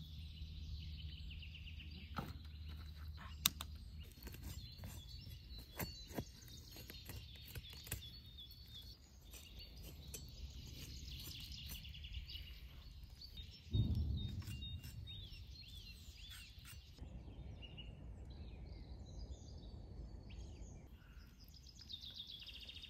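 Songbirds chirping and singing throughout, over sharp clicks and taps of knife work on a raw goose on a wooden cutting board. Midway comes one heavy thump, a cleaver chop down onto the board, the loudest sound.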